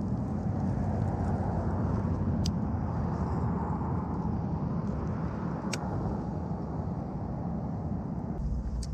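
Steady rumble of road traffic that swells through the middle few seconds, as a vehicle passes, and eases near the end. Three faint sharp ticks come through it.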